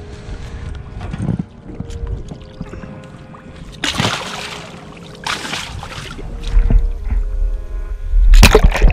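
Large flathead catfish splashing into the lake as they are dropped back over the side of the boat: two splashes about four and five seconds in, and a louder splash near the end. Music comes in toward the end.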